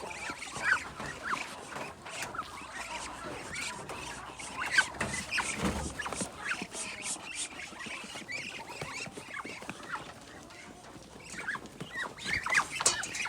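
A flock of kampung chickens crossed with Bangkok fowl calling, with many short overlapping squeaky calls and scattered light clicks.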